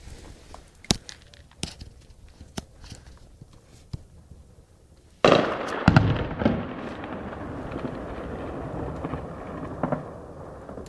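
A few scattered single gunshots, then a loud shell explosion a little over five seconds in, followed by more blasts and a rumble that rolls on for several seconds before fading.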